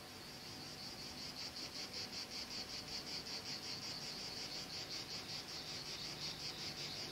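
A cricket chirping steadily: a high, pulsed chirp repeating about six times a second.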